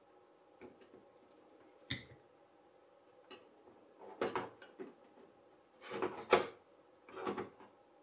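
Irregular clicks, taps and short knocks of a soldering iron, solder reel and metal jig being handled while a wire is soldered onto a connector, the loudest knock about six seconds in, over a faint steady hum.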